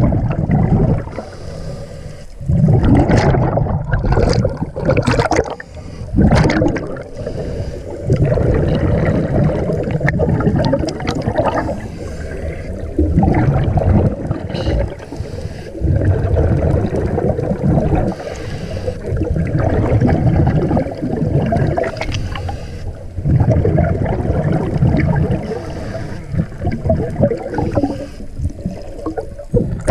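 Muffled underwater sound recorded in the sea: low rushing and bubbling water noise that swells and fades every few seconds, with sharper bubbly crackles in the first several seconds.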